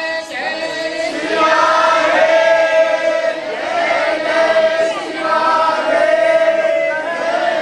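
A group of devotees singing a Hindu devotional kirtan together in chorus, in long held phrases of about two seconds each.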